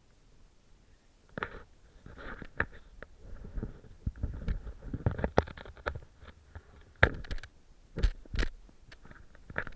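Irregular scrapes, clicks and knocks of climbing on bare rock, with hands, boots and gear against the rock close to the camera, over a low rumble. It starts about a second in, and the sharpest knocks come about two-thirds of the way through.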